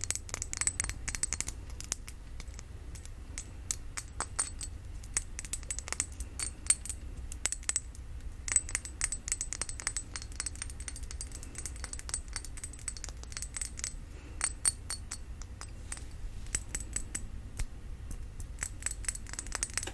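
Tapping and clinking on a glass perfume bottle: quick, irregular clicks in flurries, some with a short high ring.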